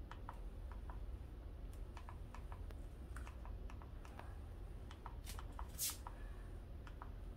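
Flat iron being clamped and drawn through thick, curly hair: light, irregular clicks, many in pairs, with one brief hiss about six seconds in.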